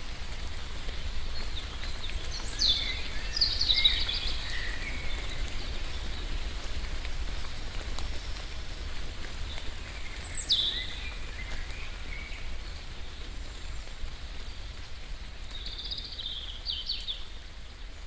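Steady light rain with birds calling over it: a few high calls that sweep downward, about 3 and 10 seconds in, and a short cluster of chirps near the end.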